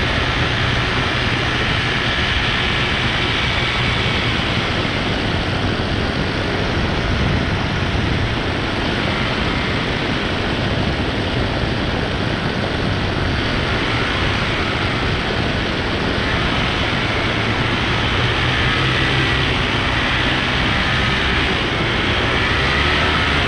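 Paramotor engine and propeller running steadily in flight, a continuous drone mixed with rushing air noise, with a faint wavering whine above it.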